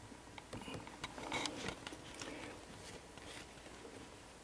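Faint clicks and scrapes of a Phillips screwdriver tip pressing on the plastic release tab of an ice maker's wire-harness connector, mostly in the first two seconds.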